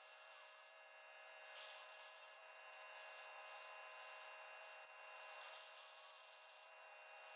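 Faint, muffled hissing from an arc cutting torch on the steel trommel drum, coming in bursts as cuts start and stop, over a faint steady machine hum.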